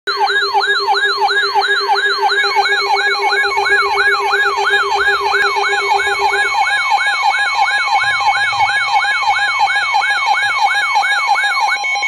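Weather alert radio sounding its alert alarm for a severe thunderstorm warning: a loud siren-like tone that falls over and over, about three times a second, over steady tones, one of which stops about halfway through.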